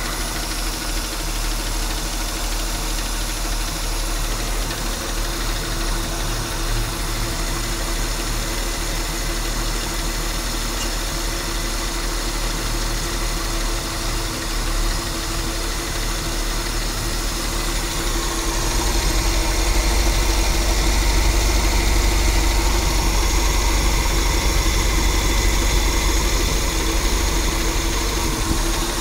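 230 inline-six engine running steadily, with a grinding noise whose cause the owner is trying to find. It grows louder for a stretch about two-thirds of the way through.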